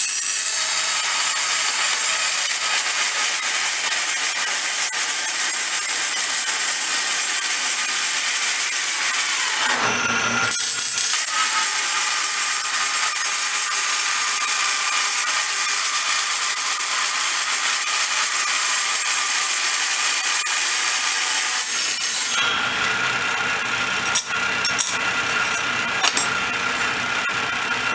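Table saw with a 7¼-inch 40-tooth carbide blade, slowed to about 1700 RPM, cutting through steel plate. There is a steady high-pitched cutting noise for about ten seconds, a brief break, and then a second cut of about twelve seconds. After that the saw runs on unloaded with a few clicks.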